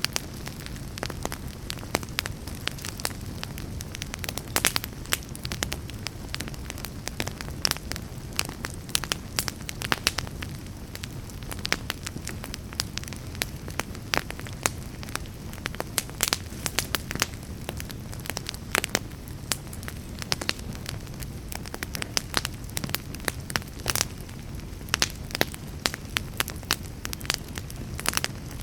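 Wood fire burning in a fireplace, crackling and popping steadily over a low rumble of the flames.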